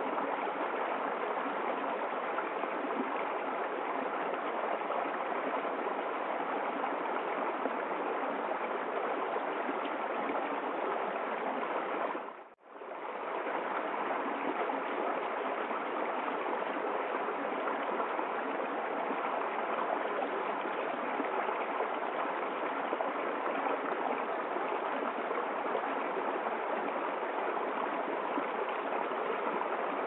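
Small stream running and splashing down a little cascade over rocks, as a steady water sound. It drops out briefly about twelve seconds in.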